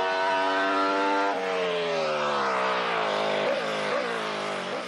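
Britten V-twin racing motorcycle engine running hard at high revs. The pitch holds, drops suddenly about a second and a half in, and keeps sinking, with three brief upward blips near the end.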